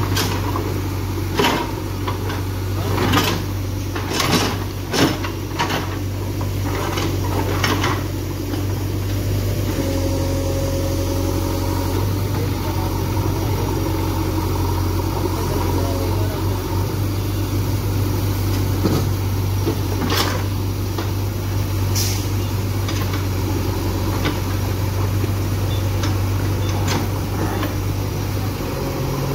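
JCB 3DX backhoe loader's diesel engine running steadily while its backhoe bucket digs through broken stone and concrete rubble, with sharp clanks and knocks of stone on the bucket, many in the first several seconds and two more later on.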